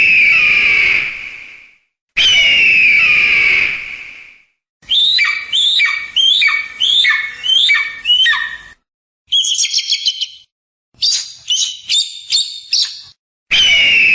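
Eagle calls: two long, harsh screams that fall in pitch, then a run of about seven quick rising-and-falling whistled calls, then two bursts of rapid, high chattering notes, with another long scream starting near the end. Each call set stops abruptly.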